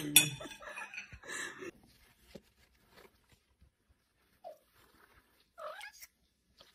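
Domestic cat meowing: a short meow about halfway through and a longer one that rises and falls near the end, after louder vocal sounds at the start.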